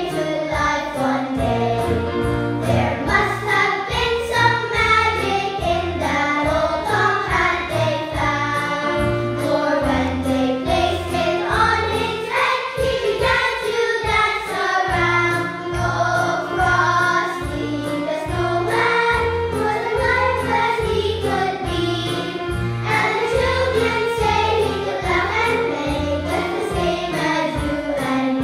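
Children's choir singing a Christmas carol in unison over an accompaniment with a steady low beat.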